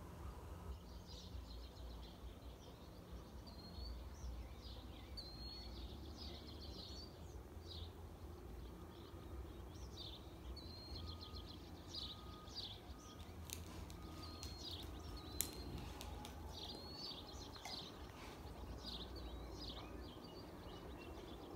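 Wild birds chirping outdoors, many short repeated calls and whistled notes, over a faint steady low rumble, with a few sharp clicks in the middle.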